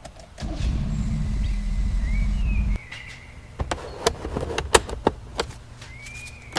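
A low mechanical rumble for about two seconds that cuts off suddenly, followed by a few sharp knocks, with short high chirps now and then.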